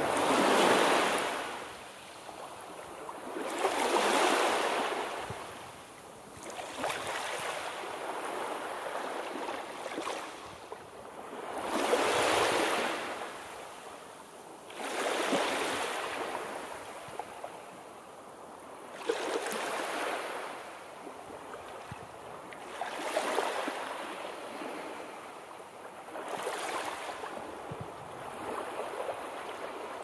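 Sea surf: waves breaking and washing in one after another, a swell of rushing noise every three to four seconds.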